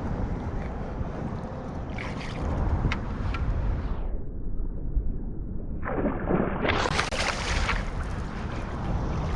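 Wind rumbling on the microphone over water lapping against a small fishing boat, with a few light clicks and a louder rush of splashing noise about six seconds in.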